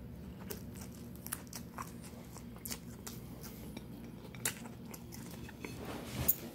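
A person chewing a mouthful of chicken and lettuce sandwich, with many small scattered crunches and clicks.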